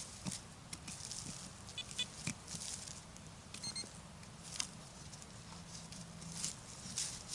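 Rustling and crackling in forest leaf litter, with a metal detector giving short high electronic beeps about two seconds in and again a little after three and a half seconds.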